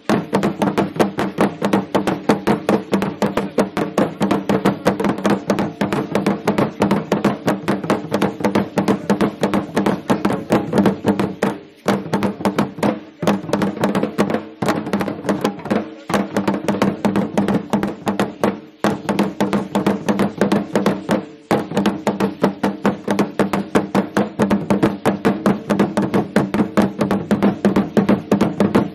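Drumming for Aztec (Mexica) ceremonial dance: a drum struck in a fast, steady beat that rings with a deep tone. There are a few brief breaks in the beat in the middle of the passage.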